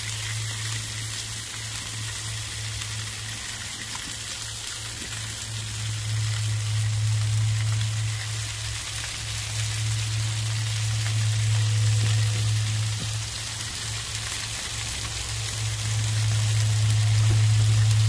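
Bacon-wrapped walleye sizzling on foil over a gas grill: a steady, rain-like hiss that swells and eases, over a steady low hum.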